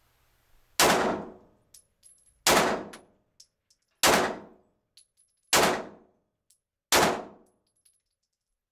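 9mm Glock 17 pistol fired five times, about a second and a half apart, each shot ringing on in the enclosed indoor range, with faint ticks between shots. This is a test string, firing a few rounds to check that the pistol runs reliably with a weapon light mounted.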